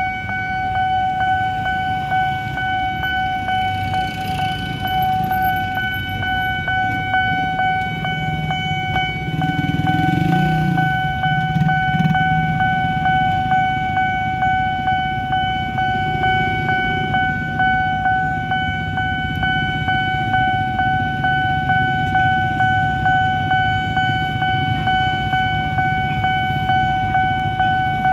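Railway level-crossing warning alarm sounding one continuous high tone, over the engines of motorbikes queued at the crossing, which swell briefly about a third of the way in.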